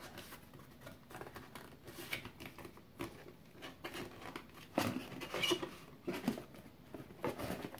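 Cardboard box packaging and plastic wrapping being handled and pushed back into a power supply's box: irregular crinkles, rustles and light knocks, busiest about five seconds in and again near the end.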